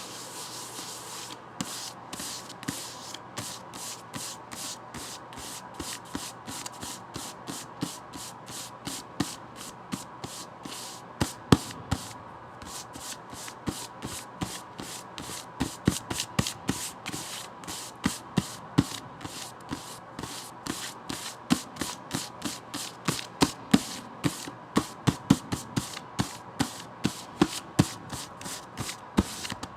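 Fingers tapping and scratching on a book, a quick run of light taps with rubbing between them, the taps growing louder about halfway through.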